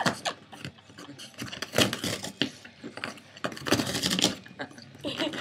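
A Boston Terrier biting, clawing and tearing at a large cardboard box: irregular scratching, crackling and ripping of cardboard in short clusters.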